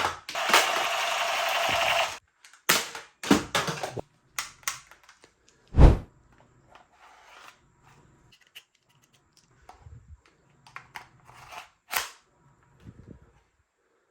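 Plastic clicks and snaps of a spring-powered toy airsoft pistol being handled and worked, after a rasping noise of about a second and a half at the start, with one loud low thump about six seconds in.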